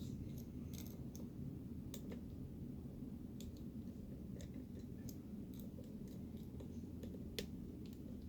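Lock pick working the pins inside a small Master padlock's keyway: light, irregular metallic ticks and clicks as pins are lifted against the tension wrench, over a low steady hum.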